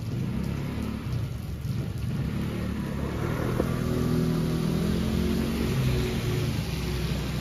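A motor scooter passing along a wet street, its engine hum and tyre hiss growing louder and peaking around four to six seconds in, over steady rain.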